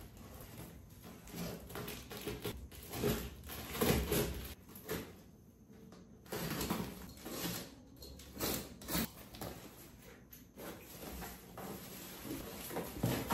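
Cardboard shipping box being torn and pulled open by hand: flaps and packing tape ripping and cardboard scraping, with the plastic-wrapped contents rustling as they are handled. The sounds come in irregular scrapes and rustles, loudest around four seconds in and again near nine seconds.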